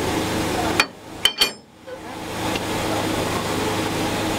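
Three sharp knocks, the first about a second in and the other two in quick succession half a second later, over a steady low hum.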